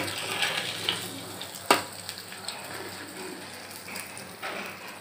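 Bread slices deep-frying in hot oil, a steady sizzle that is strongest in the first couple of seconds. A single sharp metal clink from the slotted spoon against the pan comes at about a second and a half in.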